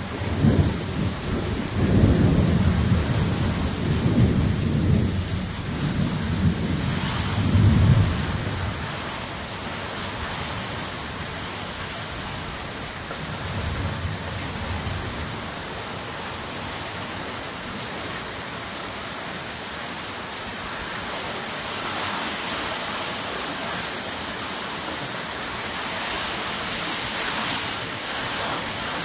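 Thunderstorm: a long roll of thunder rumbling for the first eight seconds or so and a shorter rumble around the middle, over steady heavy rain. The rain grows louder near the end as it blows across the yard.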